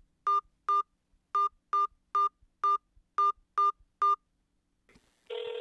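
Mobile phone keypad beeps as a number is dialled: nine short beeps, all at the same pitch, roughly two a second. Just before the end, a steady ringing tone begins on the line.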